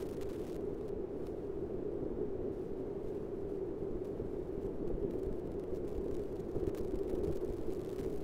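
Steady low hum with a rumble underneath: background room tone, with no speech.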